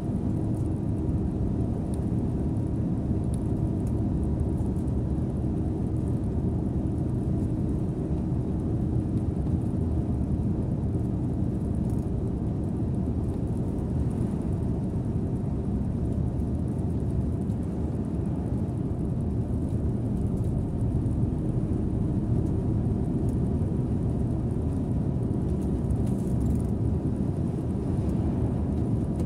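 Scania Interlink bus on the move: a steady low engine and road rumble.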